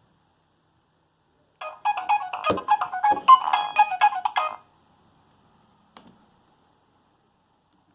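Nokia 6225 mobile phone playing one of its preloaded ringtones through its small speaker: a short, fast tune with several notes at once, starting about a second and a half in and stopping after about three seconds. A faint click follows a little later.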